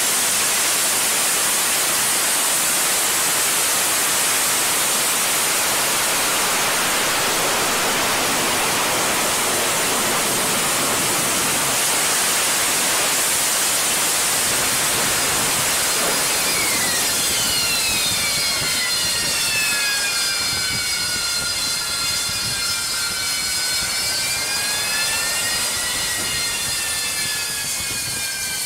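Harrier II jump jet's Pegasus vectored-thrust turbofan running at hover power, a loud steady jet roar heavy in hiss. From a little past halfway, several whining turbine tones glide down in pitch, rise briefly near the end, then fall again as the engine winds down with the jet on the deck.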